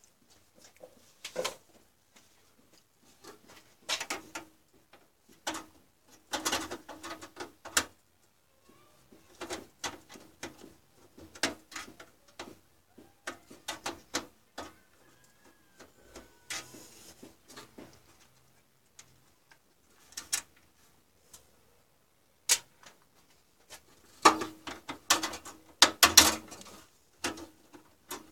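Irregular clicks, knocks and clatter of cables and parts being handled inside an open desktop PC case, coming in short bursts with quiet gaps between, the busiest stretch near the end.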